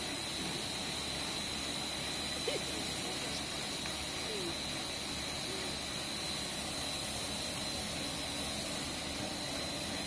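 Corn puff snack extrusion line running steadily: an even machine noise with a constant high whine.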